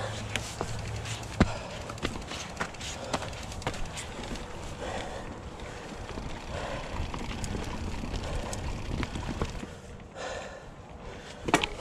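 Mountain bike riding over a rocky trail: irregular sharp clicks and knocks as the bike rattles over rocks, over a steady rolling noise, easing off briefly near the end.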